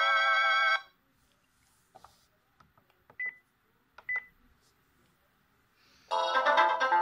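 NEC e313 mobile phone: a polyphonic ringtone on a held chord cuts off under a second in. A few soft keypad clicks and two short, high key beeps follow, and a new polyphonic ringtone melody of quick notes starts about six seconds in.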